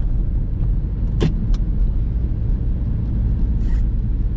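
Car cabin noise while driving slowly on a snow-covered road: a steady low rumble of engine and tyres, with two sharp clicks about a second in and a brief hiss near the end.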